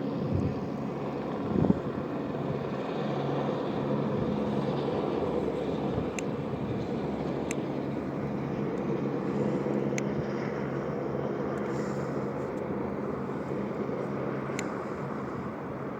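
Helicopter running with a steady drone, with one thump about two seconds in and a few faint clicks later.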